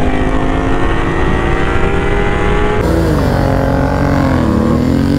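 Kawasaki Ninja 300's parallel-twin engine pulling hard at high revs, its pitch climbing slightly. Just under three seconds in it gives way to a Bajaj Dominar 400's single-cylinder engine, whose revs drop during a gear change and then climb again.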